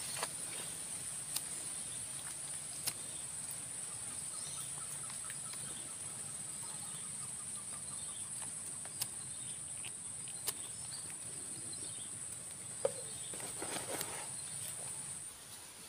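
A steady, high-pitched insect buzz that drops away near the end, with a few faint bird chirps and light ticks over it.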